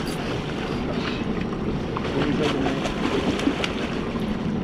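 Wind buffeting the microphone and water splashing as a hooked kingfish thrashes at the surface beside a small boat while it is netted.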